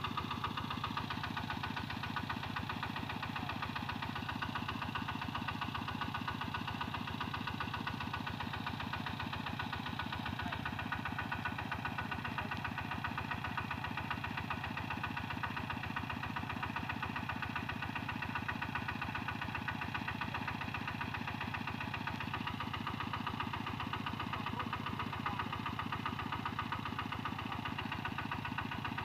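Single-cylinder diesel engine of a hand-crank-started two-wheel walking tractor running steadily, with an even, rapid knock from its firing strokes.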